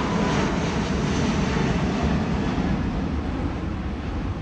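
Airbus A380 jet engines at takeoff power as the airliner climbs out overhead: a loud, steady rumble that slowly fades as it moves away. A falling whine dies out in the first half second.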